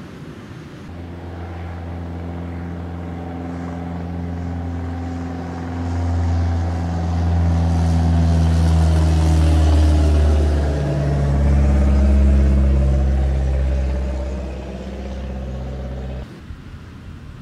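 Low engine drone of a passing motor craft. It builds over several seconds to its loudest in the middle, holds steady low tones that shift in pitch, then cuts off sharply near the end.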